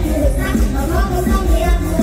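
Mor lam band music playing loud, with a heavy pulsing bass beat under a melody.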